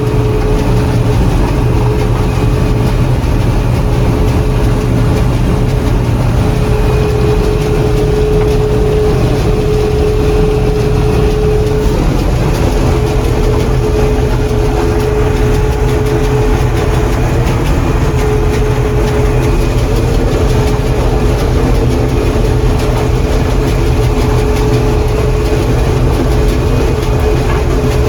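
John Deere 4400 combine running steadily: a low, even engine drone with a constant whine over it.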